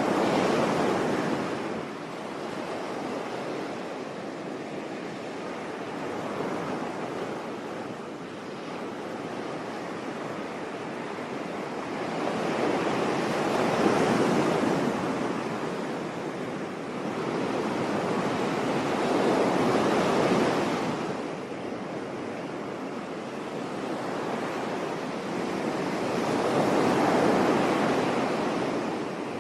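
Sea waves washing onto a beach, the surf swelling and fading in slow surges a few seconds apart, with a steady hiss of water between them.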